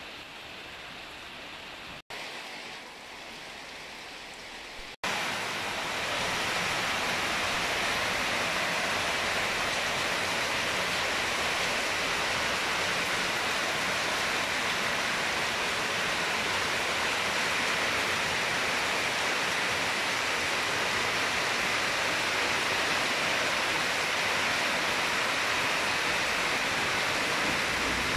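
Steady rain falling, softer for the first five seconds and then louder and even after a brief dropout.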